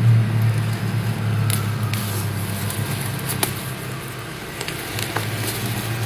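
Hands digging in potting soil and vine stems in a planter box, giving a few small crackles and clicks over a steady low mechanical hum.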